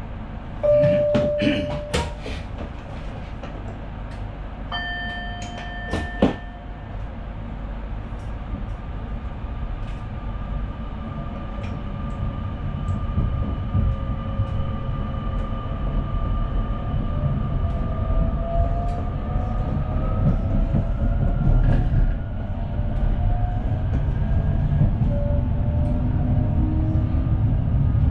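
Sprinter New Generation electric train under way, heard from the driver's cab: a steady running rumble that grows louder, with a faint whine slowly rising in pitch in the second half as it picks up speed. Near the start a single steady tone sounds for about a second, and a few seconds later a chord-like tone sounds for about a second and a half.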